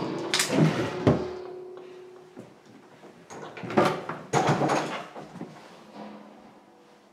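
A wooden interior door opened by its knob: the knob and latch clicking, a drawn-out hinge creak, then a few louder knocks and scrapes.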